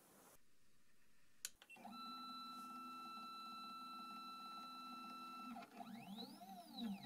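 Stepper motors of a Sainsmart 3018 PROVer mini CNC running a Z-axis height-probe move: after a click, a faint, steady whine of several pitches for about three and a half seconds that stops abruptly, then a short move whose pitch rises and falls.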